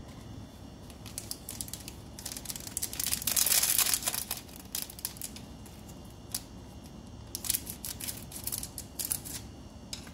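Foil seasoning sachet from a packet of instant noodles crinkling as it is handled and cut open with scissors. The crinkling comes in irregular rustles, loudest about three to four seconds in, with another flurry near the end.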